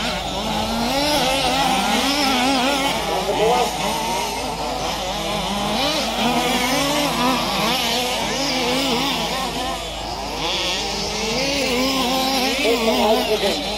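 Two-stroke petrol engines of several large-scale RC off-road buggies racing together, their pitches rising and falling as they throttle up and back off around the track.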